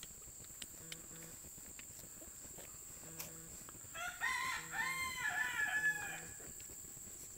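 A rooster crowing once, a call of several linked notes lasting about two seconds, starting about four seconds in.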